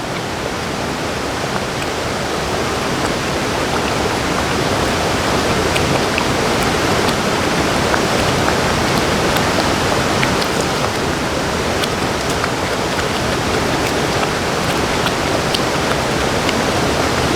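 A waterfall and creek rushing steadily, with faint scattered ticks over the top.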